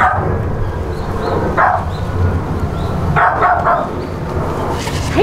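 West Highland White Terrier barking a few short times, the barks a second or more apart.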